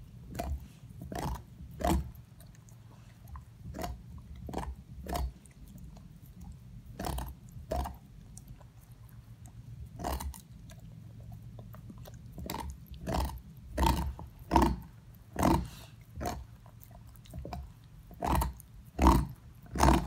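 Dog gnawing on a large bone, with irregular crunching and scraping bites every half second or so, growing louder and closer together in the second half.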